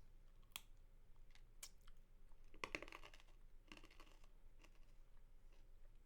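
Faint, wet mouth clicks and smacks from sucking and licking a spicy mango lollipop close to the microphone: single clicks here and there, and a quick run of them a little before the middle.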